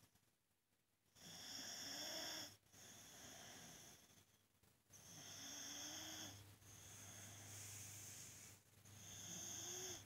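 Boxer dog snoring in its sleep, starting about a second in: three louder snores with a wavering tone, each with a softer breath between them.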